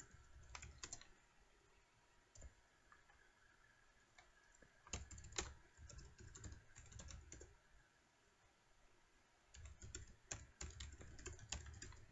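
Faint computer keyboard typing: a few key taps at first, then two flurries of quick key clicks with a pause between them.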